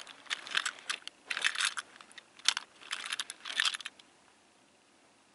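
Die-cast toy train engines handled close up: a run of small clicks and light rattles as one is picked up and turned over, falling quiet about four seconds in.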